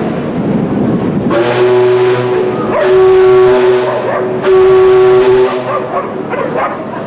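Paddle steamer Waverley's steam whistle giving three short, steady blasts about a second each, a chord of several pitches. Three short blasts is the sound signal that a ship's engines are going astern.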